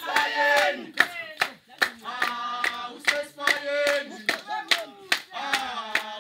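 A group of voices singing, accompanied by steady hand clapping about twice a second.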